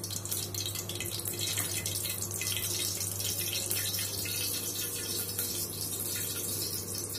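Cooking oil heating in an aluminium pot on a gas stove for tempering, sizzling with a dense, fine crackle over a steady low hum.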